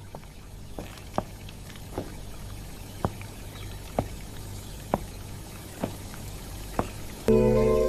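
Water dripping steadily, one drop falling about every second. Music with a held chord comes in near the end.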